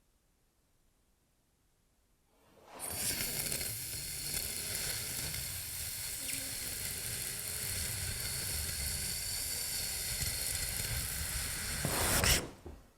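A loud, steady hiss that starts about two and a half seconds in, holds for about nine seconds and cuts off suddenly.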